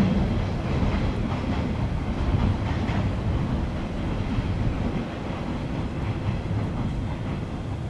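JR 381 series limited-express electric train pulling away over station pointwork: steady rumble with irregular wheel knocks over the switches and rail joints, fading slowly as it recedes.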